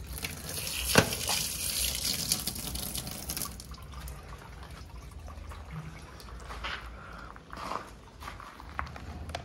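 Water running and splashing over a plastic toy figure for about three seconds, with a sharp click about a second in, then quieter dripping and small knocks of plastic being handled.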